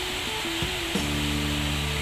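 Background music with held notes, changing to a new chord about a second in.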